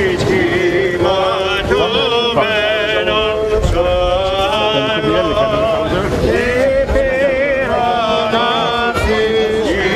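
Male voices chanting an Orthodox Byzantine hymn, with long held notes and melismatic ornaments.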